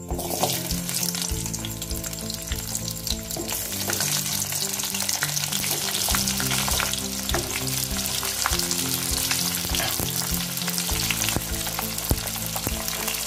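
Pieces of raw green mango sizzling in hot mustard oil in a kadai. The sizzle starts abruptly as they go in and keeps on steadily, crackling with many small pops.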